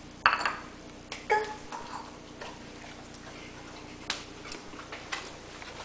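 A bowl set down on a tiled floor with a sharp clink about a third of a second in, then a few more clinks and lighter clicks as a giant schnauzer eats fruit salad from it, its muzzle knocking against the bowl.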